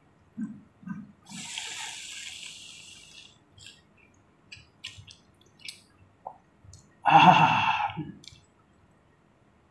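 A person slurping hot chicken thukpa soup and noodles, with soft mouth and chewing sounds and small clicks between. About seven seconds in there is a louder, harsher one-second burst on which he nearly chokes.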